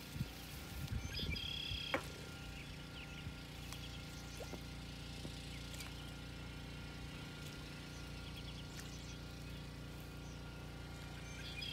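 Quiet outdoor ambience dominated by a steady, faint, engine-like low hum. There are a few soft handling bumps in the first two seconds, and short high chirps about a second in and again near the end.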